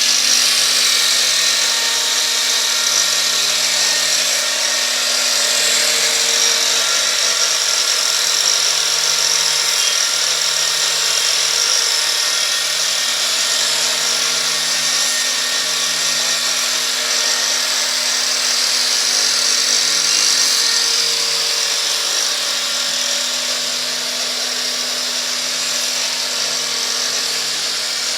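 Angle grinder fitted with a three-tooth saw disc, running steadily and cutting a wooden propeller blank on a homemade copying machine, with the machine's vacuum dust extraction running along with it. Loud, even, high-pitched whine throughout.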